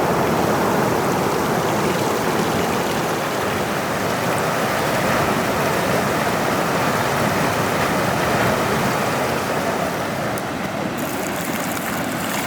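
Steady rush of flowing water, a creek or river running fast.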